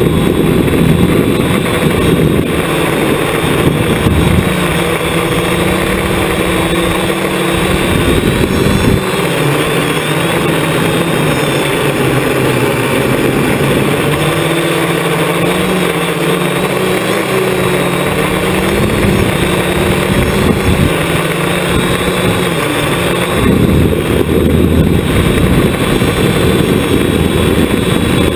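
Hexacopter's six electric motors and propellers, heard from its onboard camera: a steady buzzing whine whose pitch shifts up and down several times as the flight controller changes motor speeds.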